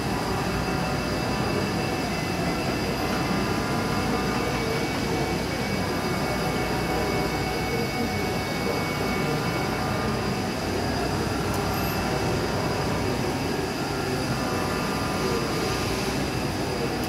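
1999 IBARMIA ZV 50/3000 vertical machining center milling metal under flood coolant: a steady spindle-and-cutting noise mixed with coolant spray, with thin steady high whines on top.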